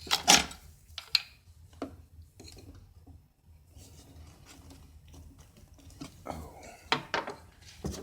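Sharp clinks and knocks of hand tools and metal hardware being handled against wood, the loudest about a third of a second in, more around seven seconds, with quiet rubbing between.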